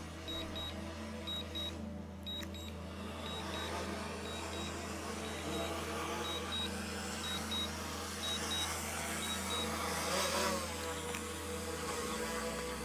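DJI drone remote controller sounding short high double beeps about once a second while the Mavic 3 auto-lands on return-to-home, over a steady low hum. The beeps stop about ten seconds in, and a short falling whine follows.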